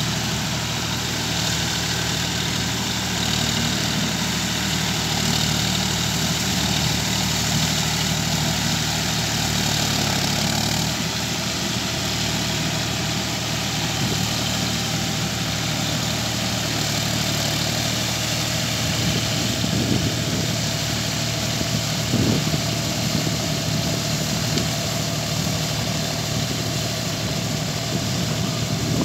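John Deere 5050D tractor's three-cylinder diesel engine running steadily under load while it pulls a rotary tiller through flooded paddy mud. A few sharper knocks come about two-thirds of the way through.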